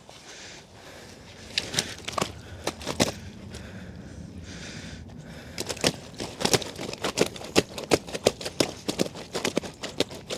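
Mirror carp thrashing on an unhooking mat: an irregular string of sharp slaps and crackles that grows busier from about the middle, the fish lively and angry.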